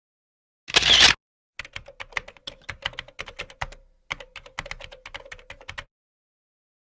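Typing on a computer keyboard: a run of irregular key clicks, several a second, with a short pause midway. It is preceded by a brief burst of noise.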